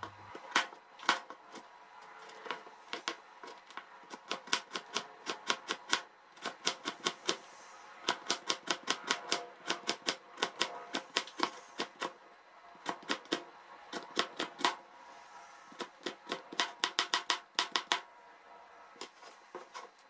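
Kitchen knife chopping carrot into small dice on a plastic cutting board: runs of quick, even chops, several a second, broken by short pauses, thinning out near the end.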